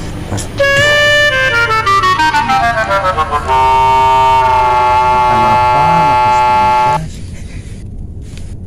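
Comic sound effect edited over the footage: a loud, brassy horn-like tone that starts suddenly, drops in quick downward steps, then holds one long low note before cutting off abruptly.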